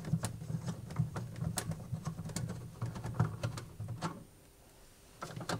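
Crosshead screwdriver undoing a screw in a fridge's plastic thermostat housing: faint scratching and light clicks as the bit turns in the screw. The sound stops about four seconds in, and a couple of clicks follow near the end.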